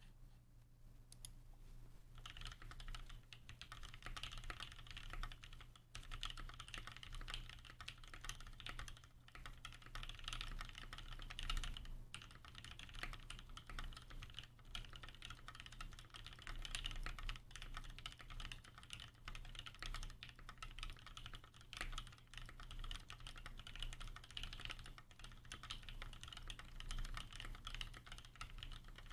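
Continuous fast typing on a custom mechanical keyboard with lubed Gateron Black Ink linear switches, a full polycarbonate plate and GMK Delta keycaps: a dense run of soft keystroke clacks, starting about two seconds in, with a steady low hum underneath.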